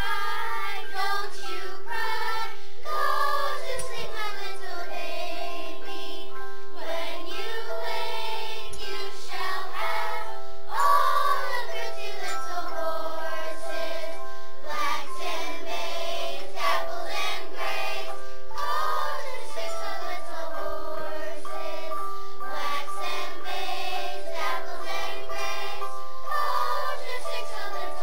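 A class of children singing a folk lullaby melody together, with tone bars struck by mallets ringing long held harmony notes underneath.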